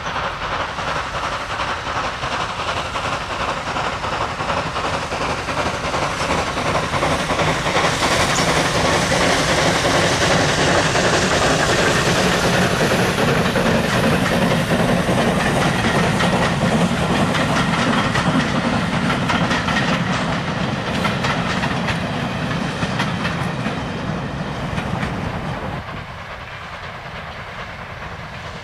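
Steam-hauled passenger train passing close by. It grows louder as the locomotive draws level and is loudest through the middle, then the coaches roll past with wheels clicking over the rail joints as it fades. The sound drops sharply near the end.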